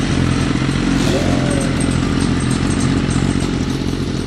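An engine running steadily at idle: a low, even drone with a fast, regular firing pulse that holds unchanged.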